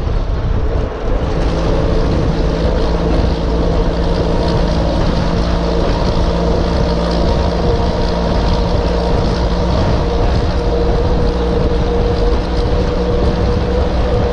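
A truck engine running steadily: a low rumble with a constant hum and no change in speed.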